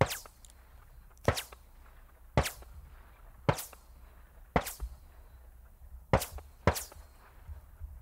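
Subsonic 9 mm rounds from an MP5, fired toward the microphone from about 200 m, heard downrange. A series of sharp single shots comes about once a second, each snapping and then fading quickly; the last two come closer together.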